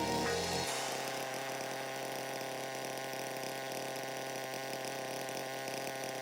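Background music in a quiet passage: a soft held chord of steady tones with the bass and beat dropped out.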